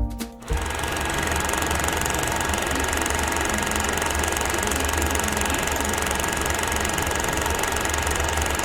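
A small machine running steadily, giving an even, fast mechanical clatter with hiss and a low hum. Music stops about half a second in.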